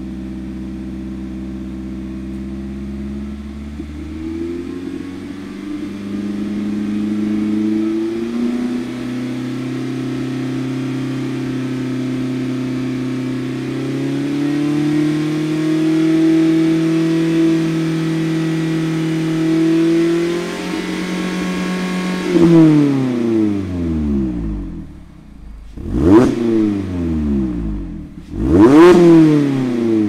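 A cold Mazda ND Miata four-cylinder engine exhausting through a Goodwin Racing RS Super Street single-tip exhaust with no baffle. The engine is held at steady revs that step up several times, then drops back about two-thirds of the way through. Two quick revs follow near the end, each climbing sharply and falling straight back.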